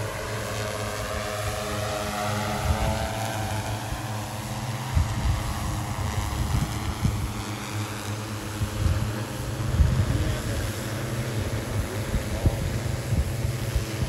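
Large six-rotor drone's propellers whirring steadily as it flies in low toward its landing pad, with wind buffeting the microphone in gusts.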